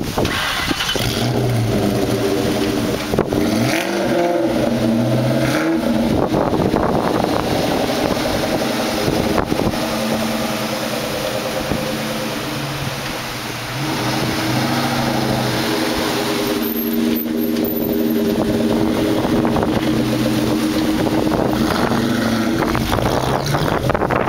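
Supercharged Ford SVT V8 engine running, mostly at a steady idle with a few pitch changes from light revving about four to six seconds in, and a brief dip in level near the middle.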